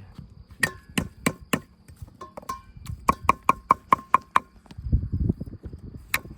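Sharp knocks or chops: a few single strikes, then a quick run of about five a second that each ring briefly, followed by a low rumble.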